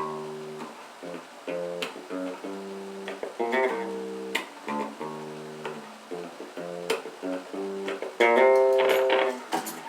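Electric bass played through an Ampeg PF-500 bass amplifier: a run of plucked notes, several with sharp, slapped-sounding attacks, loudest near the end. It is a playing test, with the amp passing signal after its input jack and I/O board were replaced.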